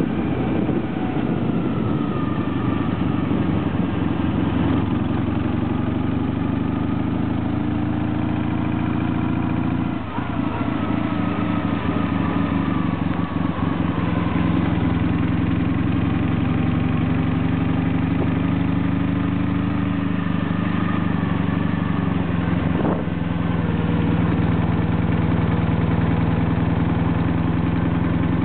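Heavy Soviet-pattern flat-twin motorcycle engine running steadily while riding, its note drifting slowly in pitch, with two brief drops, about a third of the way in and again past three-quarters.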